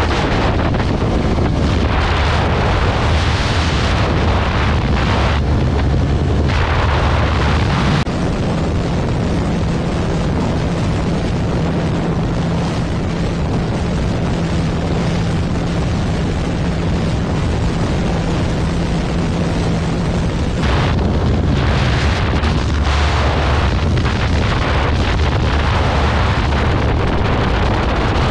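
Heavy wind buffeting on the microphone over a single-cylinder motorcycle engine running at high speed on a top-end run. From about 8 s to 21 s the engine holds a steady hum at one pitch, and the sound changes abruptly at both ends of that stretch.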